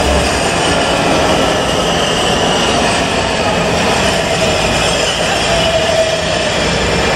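Washington Metro train pulling into an underground station, its steel wheels rolling steadily along the rail with high squealing tones over the noise.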